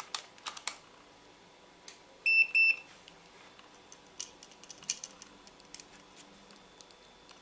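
Mastech MS2108A clamp meter beeping twice, two short high-pitched beeps about two seconds in, after a few clicks from its rotary dial being turned. Faint clicks of test leads and probes being handled follow.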